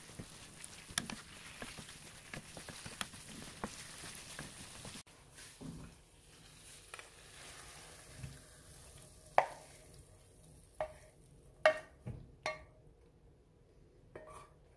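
Tortelloni and shrimp sizzling in a frying pan while being stirred with a wooden spatula, with many small scraping clicks. About five seconds in, the sizzle stops abruptly, and about five sharp, ringing clinks follow as a utensil strikes a ceramic plate while the food is served.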